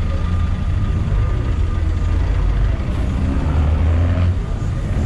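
Cummins diesel engine of a city bus running close by in street traffic, a steady low rumble that swells for a moment near the end.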